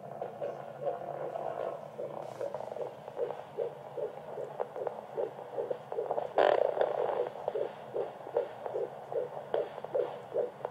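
Fetal heartbeat through a handheld Doppler monitor: a fast, even whooshing pulse at about two and a half beats a second, in the normal 120–160 range. There is swishing static in the first second or two before the beat comes through, and a louder scrape about six seconds in as the probe shifts on the belly.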